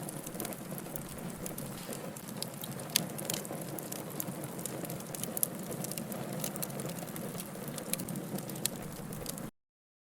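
Wood burning in a campfire, crackling and popping with irregular sharp snaps over a steady hiss of flames. The sound cuts off suddenly near the end.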